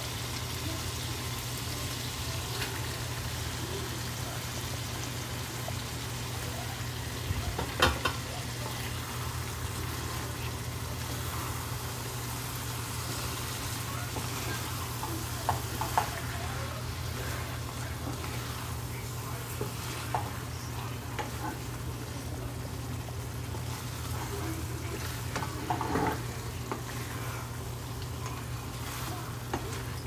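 Quail pieces sizzling in a pot of fried onion-and-spice masala for quail bhuna, stirred with a wooden spatula that knocks and scrapes against the pot a few times. A steady low hum runs underneath.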